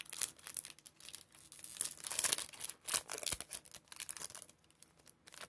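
A 2020 Bowman Chrome baseball card pack's wrapper being torn open and crinkled by hand, in a run of irregular crackles, loudest about two seconds in.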